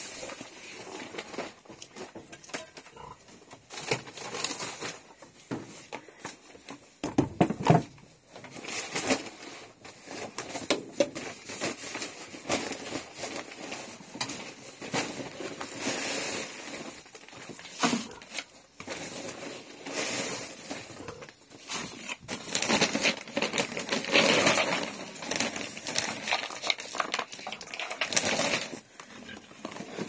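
Paper feed sacks crinkling and rustling while dry pig feed is scooped into buckets: an irregular run of rustles and small knocks.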